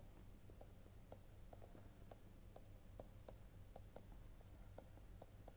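Faint, irregular taps of a pen stylus writing on a tablet screen, two or three a second, over a low steady hum.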